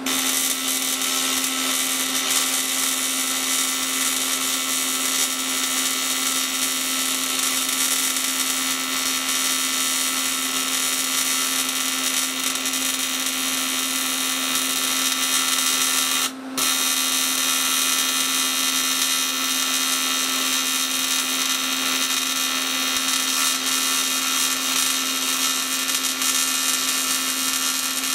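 TIG welding arc on aluminium, a steady buzzing hiss from the AC arc. It cuts out for a moment about sixteen seconds in, then carries on.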